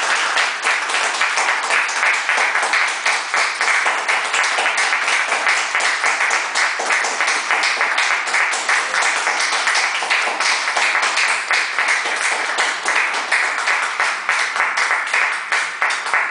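Small audience applauding, a dense, steady clapping that holds throughout.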